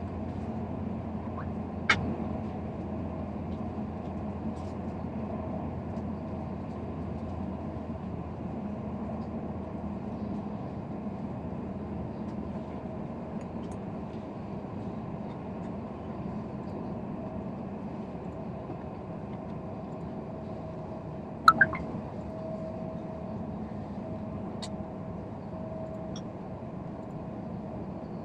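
Steady hum and rumble inside a high-speed train carriage, with a faint steady tone over it. A few sharp clicks or knocks cut through; the loudest is a double knock about 21 seconds in.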